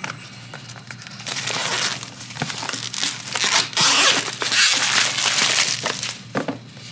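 A product box being opened and its packaging pulled out: rustling, crinkling and tearing of wrapping with small knocks, busiest in the middle and dying down near the end.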